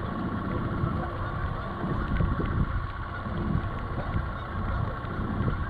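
Boat's outboard motor running steadily at trolling speed, a constant hum with a thin whine over it, mixed with low rumbling wind and water noise.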